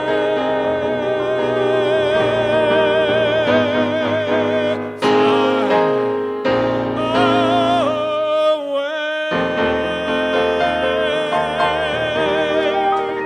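Male singer holding a long final note with wide vibrato over piano accompaniment, closing the song; the voice drops out about nine seconds in, leaving sustained piano chords.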